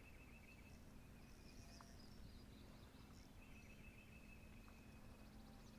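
Near silence: faint outdoor ambience with a high, rapidly pulsing trill that drops out for a couple of seconds in the middle and then returns, and a few faint high chirps.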